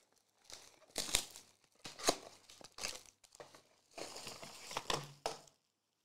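Foil trading-card packs crinkling as they are handled and stacked, in a series of short crinkles with brief pauses between them.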